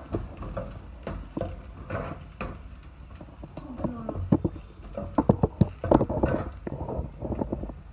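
Metal ladle stirring and scraping chopped garlic frying in oil in an aluminium pot, with clinks and knocks against the pot, coming thicker and louder in the second half.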